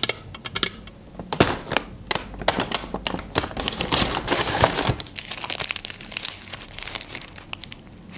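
Paper McDonald's takeaway bag and hamburger wrapper crinkling and rustling as they are handled, with sharp clicks and taps mixed in.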